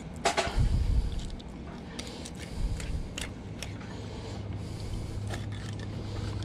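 Fillet knife and hands working a mahi-mahi fillet on a plastic cutting board as the skin is pulled off: scattered light scrapes and taps, with a low thump about half a second in. A steady low hum grows louder from about four seconds in.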